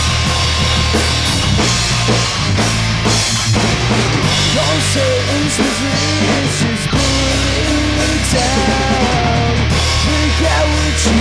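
Loud rock song with a full drum kit, distorted electric guitar and bass, playing without a break. A higher, wavering melody line comes in about halfway through.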